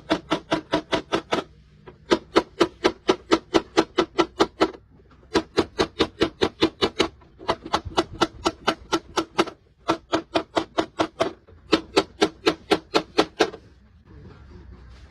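Rapid rhythmic knocking, about five or six hard strikes a second, each with a short ringing tone, in runs of two to three seconds broken by brief pauses.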